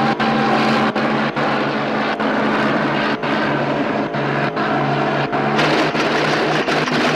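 Helicopter engine and rotors running with a steady drone that shifts pitch about three quarters of the way through, mixed with a car engine in a TV chase soundtrack.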